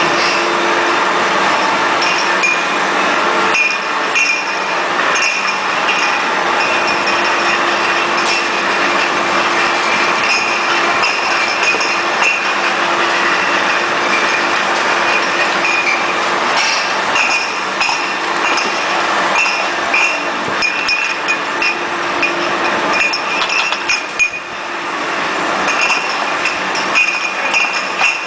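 Wine bottle washing machine running, with glass bottles clinking repeatedly as they move through it, over a steady mechanical hum.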